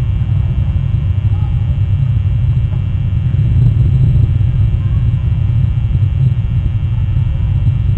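Wind buffeting an outdoor nest-cam microphone, a steady low rumble, with a few faint chirps now and then.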